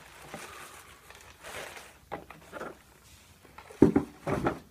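Paper wrapping rustling and a cardboard shoe box being handled as a pair of sneakers is lifted out, in short scattered bursts. Near the end a sharp knock and a louder rustle of handling noise.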